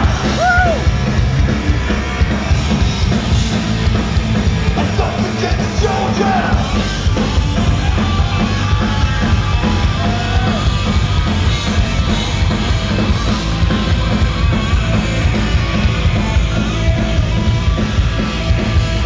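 Live rock band playing loud, with drums, bass and electric guitars through Marshall amplifiers, and a voice rising over it a couple of times in the first seconds, heard from within the audience.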